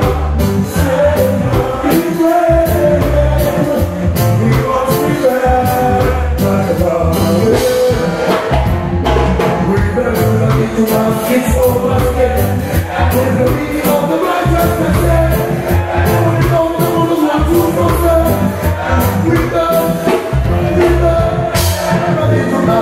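Loud live music through a stage PA: a steady drum beat under shifting melodic lines, with a vocalist singing into a microphone.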